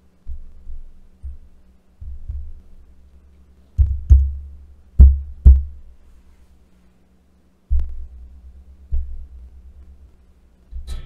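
Taps and flicks on the Maono PM461S USB condenser microphone's shock mount and boom arm, picked up by the microphone itself as a string of about a dozen low thuds. The loudest are a few sharper knocks around the middle. This is a test of how well the shock mount isolates handling knocks, and a faint steady hum sits underneath.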